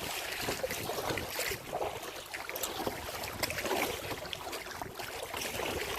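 Kayak paddle strokes through lake water, about one a second, with water splashing and swishing along the hull.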